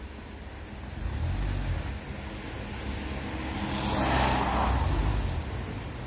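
A van driving past close by: its tyre and engine noise swells to a peak about four seconds in and then eases off, over a low rumble.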